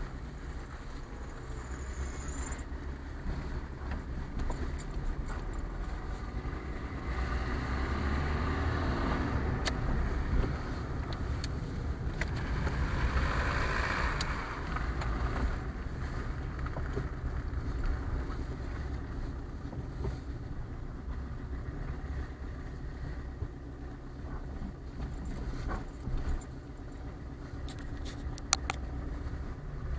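Car engine and road noise heard from inside the cabin as the car drives slowly, a steady low rumble with occasional small clicks and rattles.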